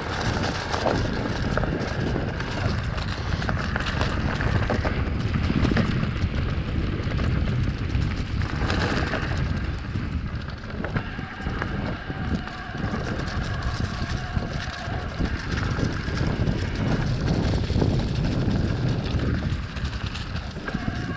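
Electric mountain bike ridden fast down a dirt forest trail covered in dry leaves: wind buffeting the camera microphone over the steady rumble of the knobby tyres on dirt and leaves.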